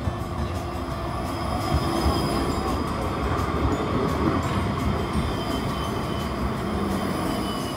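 Electric tram passing close by on street rails: a steady rumble of wheels on track with faint thin high tones over it, loudest in the middle and easing off near the end.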